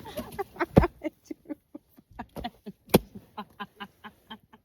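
A person's voice in a run of short, quick pitched bursts, about three or four a second, fading toward the end. Two sharp slaps cut in, one about a second in and a louder one near three seconds.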